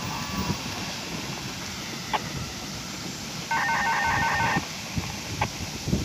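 A burst of rapid electronic two-tone ringing, about a second long, beginning about three and a half seconds in, over steady wind noise.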